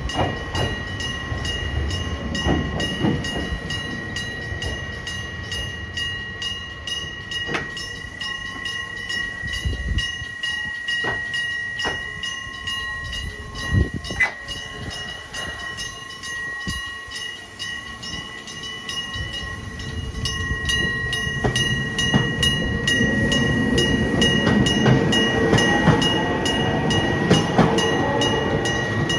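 Electric-bell railway crossing bell ringing continuously, a rapid metallic trill on a steady high tone. A train passes over the crossing, its wheels rumbling and a whine from its motors rising in pitch, loudest over the last several seconds.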